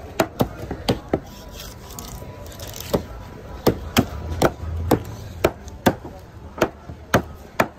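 Large knife chopping and cutting a yellowfin tuna on a wooden cutting board, giving sharp knocks at an uneven pace, about a dozen in all.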